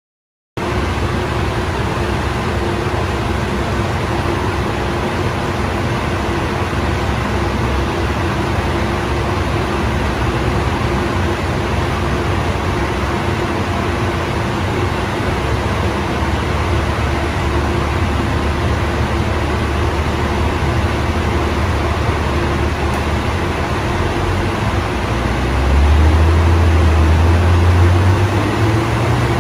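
BMW M340i's B58 turbocharged inline-six running steadily on a chassis dyno under a steady rush of air from the dyno's cooling fans. About 26 seconds in, the deep low engine note gets louder.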